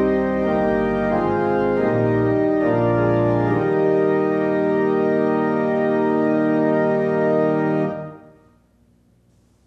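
Pipe organ playing the closing chords of a hymn: chords change every second or so, then a final chord is held for about four seconds and released about eight seconds in.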